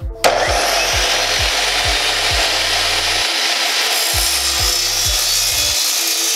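Electric compound miter saw running and cutting, a steady loud sawing noise that starts about a quarter second in.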